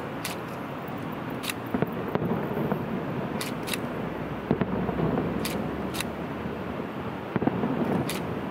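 Steady distant city traffic rumble with faint, irregular pops from far-off fireworks, plus a handful of sharp clicks scattered through it.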